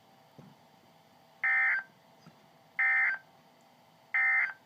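NOAA Weather Radio Emergency Alert System (SAME) digital data tones: three short, identical, buzzy bursts, each well under half a second and spaced a little over a second apart. They are the end-of-message code that closes the weekly test transmission.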